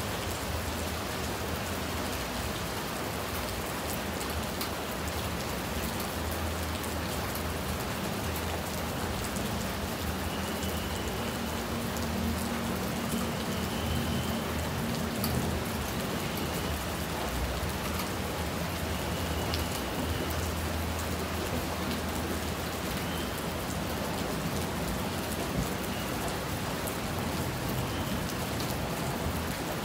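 Steady rain falling, a constant hiss with the scattered ticks of individual drops hitting a surface.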